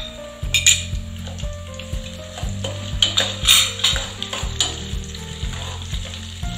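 Steel spoon stirring and scraping through green chillies, garlic and ginger frying in oil in a metal pan on a low flame, with a sizzle under repeated clinks of the spoon against the pan.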